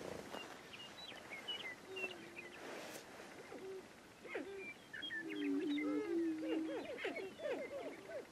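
Male prairie chickens booming on a lek: low, steady, hooting moans, overlapping with rising and falling whoops. The booming grows louder and fuller about halfway through.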